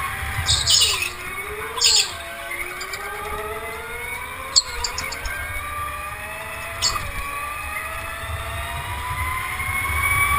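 Go-kart motor running under the driver's throttle, its whine rising and falling in pitch with speed through the corners over a low rumble. A few short, sharp hissing bursts are heard in the first half.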